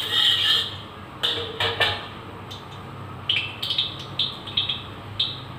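Metal spatula knocking and scraping against a wok of heating oil: a few sharp knocks, then a run of short clinks and scrapes, over a low steady hum.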